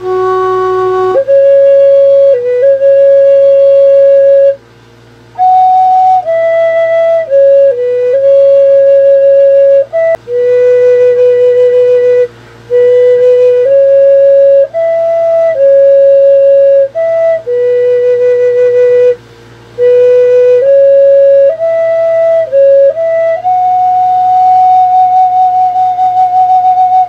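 A wooden end-blown flute played solo: a slow melody of long held notes with a few short breaths between phrases, ending on one long sustained note.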